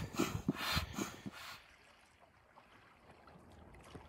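Rhythmic rasping strokes, about two or three a second, that stop about a second and a half in, leaving a faint outdoor hush with a few light ticks.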